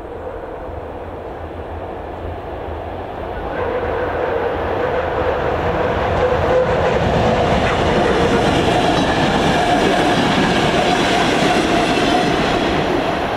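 Czech Railways diesel passenger train, a class 954 control car, a class 854 railcar and a class 814 RegioNova unit, approaching and running past. Its noise grows louder about three and a half seconds in and stays loud as the cars go by.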